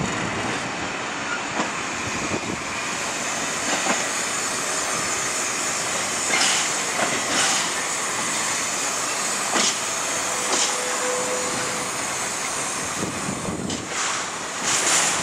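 Empty freight wagons (EWS MHA open box wagons) rolling past: a steady rumble and hiss of wheels on rail, broken by irregular clanks and knocks. There is one brief thin squeal a little past halfway.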